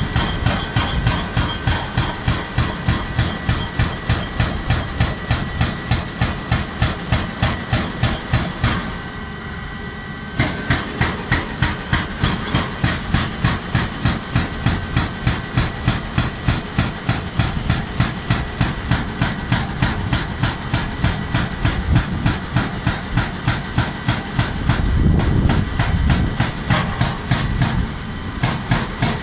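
Hydraulic breaker on a JCB tracked excavator hammering rock: a rapid, even run of blows, several a second, over the excavator's running diesel engine. The hammering stops for about a second and a half around nine seconds in and briefly again near the end, while the engine keeps running.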